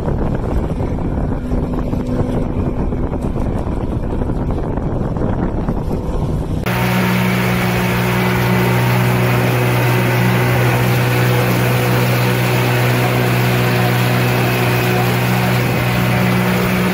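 Wind rumbling on the microphone with a faint motor hum. About seven seconds in, it switches suddenly to a 40 hp outboard motor running steadily at speed, heard from right behind it on the boat, with the wake's water rushing.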